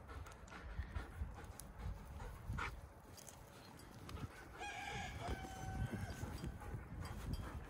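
A rooster crows once, about two-thirds of the way through: a few short notes and then one long held note. Soft, uneven thuds of steps through grass run underneath.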